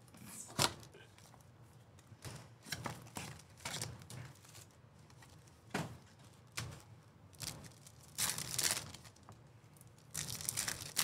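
Topps Chrome baseball card pack wrappers being torn open and crinkled in short, separate rips and rustles. There is a sharp snap about half a second in, and longer crinkling about eight seconds in and again near the end.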